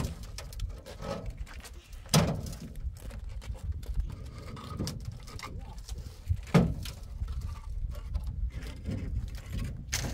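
Three sharp knocks a few seconds apart over a steady low rumble.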